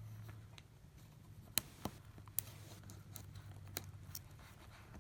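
A few sharp, faint clicks and taps of small iPad mini parts and tools being handled during a repair, over a low steady hum.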